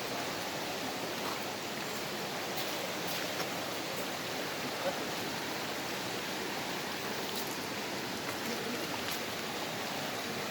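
Creek water rushing steadily over rocks, with a few faint clicks.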